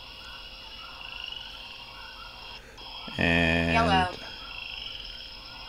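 Looping animal-sound background track from the app: a steady chorus of high calls, with one loud, low, croaking call lasting about a second, about three seconds in.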